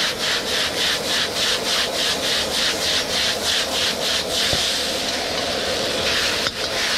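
High-powered wok burner running with a steady rush under a wok of rice noodles sizzling with freshly added soy sauce. For the first four seconds or so the wok is tossed in a quick rhythm of about three or four strokes a second, then only the steady burner and sizzle remain.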